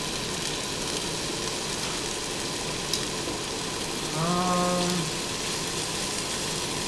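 Chow mein noodles and vegetables sizzling steadily in a hot wok as they are tossed with metal tongs, with a single click near the middle. About four seconds in, a man's voice gives a short held note, lasting about a second.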